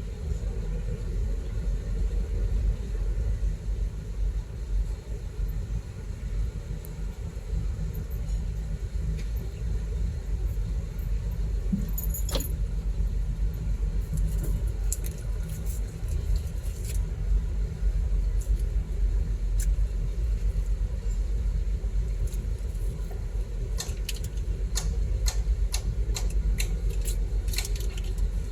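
Heavy diesel engine running steadily with a low drone, with scattered sharp metallic clicks and rattles that come thickest over the last few seconds.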